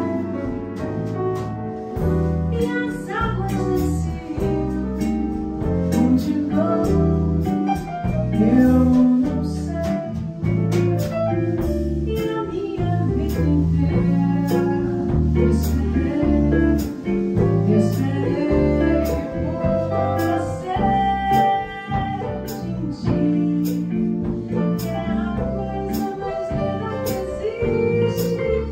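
Live band performing a song: a woman singing lead over grand piano, archtop electric guitar, electric bass and a Mapex drum kit, with steady cymbal strokes keeping the beat.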